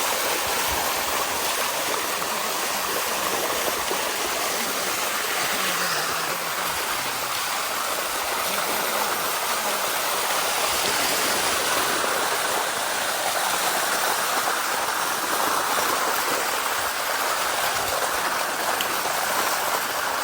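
Steady rush of water flowing down a waterfall.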